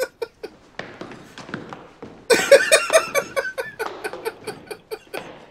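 A man laughing hard in a quick run of rhythmic 'ha' bursts that starts about two seconds in and tails off near the end, with a few sharp taps and knocks in the quieter stretch before it.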